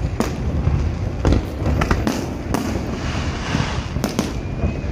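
Aerial fireworks bursting overhead: several sharp booms at irregular intervals over a continuous low rumble, with crackling from the shells between them.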